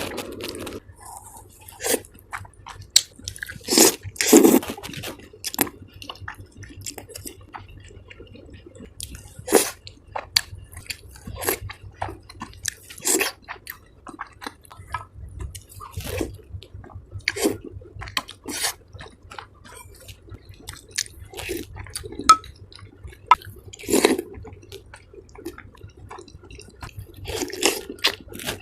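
Close-up eating sounds of a person eating tteokbokki and ramen noodles: wet chewing and mouth sounds, with irregular sharp clicks and smacks.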